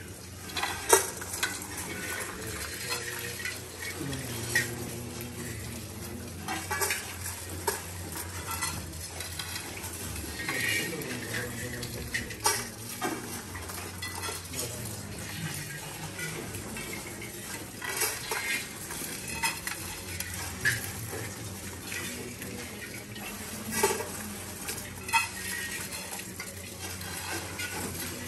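Grain being poured, heaped and swept by hand on several metal mandala offering plates at once: a steady rustling hiss of sliding grain, broken by frequent sharp metallic clinks of the plates and rings.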